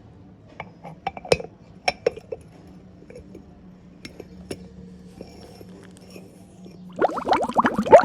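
Light clinks and taps of glass or crockery, scattered through the first few seconds, as when a cup is handled. About seven seconds in comes a louder quick run of short rising sounds.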